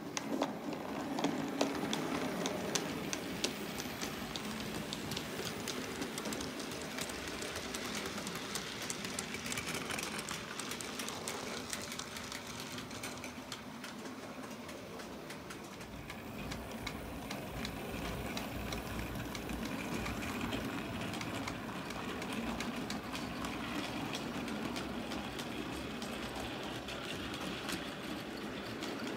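Model railway locomotive running on track with a train of coal wagons: a steady running noise with dense fine clicking of wheels over the rail joints, busiest in the first half. A low rumble comes in a little past halfway.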